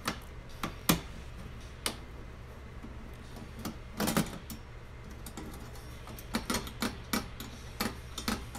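Irregular light clicks and taps of small parts being handled, a few close together about four seconds in and again near the end, over a steady low hum.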